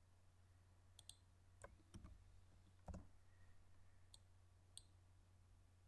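Faint computer mouse button clicks, about seven, spaced irregularly, over a steady low hum.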